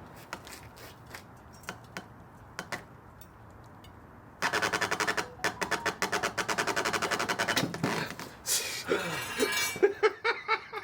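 Impact wrench hammering rapidly on a seized rear axle shaft nut for about three seconds without freeing it, after a few scattered clicks and taps of tools. The run ends with more irregular rattling.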